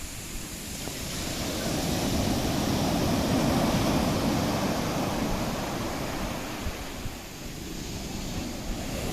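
Sea waves breaking and washing onto the beach. A wave surges up over the first few seconds and recedes, and the next starts to build near the end.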